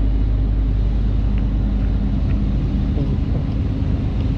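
Vehicle engine running steadily, a continuous low rumble with road noise.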